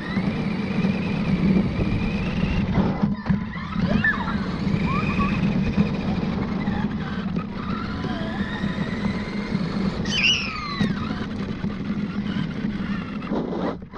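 Radio-controlled truck's electric motor and gears whining as it drives, the pitch gliding up and down with its speed over a steady rumble.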